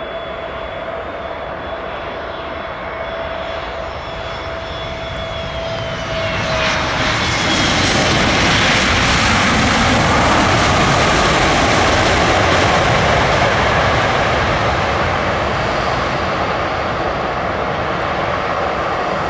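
Airbus A320neo with CFM LEAP-1A engines on its landing pass. A steady two-note engine whine drops in pitch as the jet goes by, about six seconds in. A louder jet roar then swells and slowly fades.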